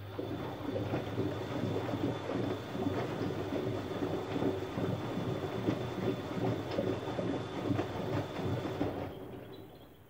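Siemens Siwamat IQ front-loading washing machine turning its drum during the wash: a steady motor hum and whine under wet laundry tumbling and sloshing with small knocks. It builds up at the start and stops about nine seconds in.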